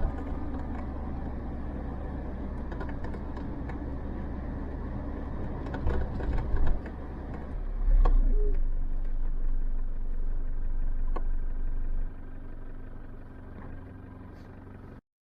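Land Rover on the move: steady engine and road rumble with scattered small knocks, swelling louder about eight seconds in and easing off about twelve seconds in, then cutting off abruptly near the end.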